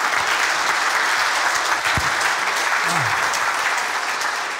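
Audience applauding: steady clapping from many hands, easing slightly near the end.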